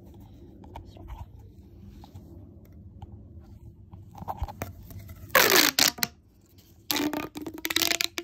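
Plastic pop tube fidget toy being stretched and squashed: after some quiet handling, two loud rasping, crackling bursts with a steady pitched ring in them, a short one about five seconds in and a longer one about seven seconds in.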